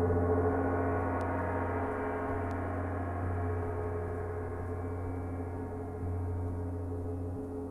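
Gong sounding in a sustained, dense wash of many overlapping tones over a deep hum, swelling slightly about six seconds in.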